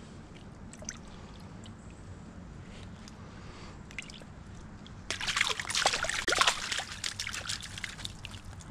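Water splashing and sloshing in a landing net held in a shallow stream as a brook trout thrashes in it, starting suddenly about five seconds in as quick, irregular splashes. Before that, only a faint steady murmur of the stream.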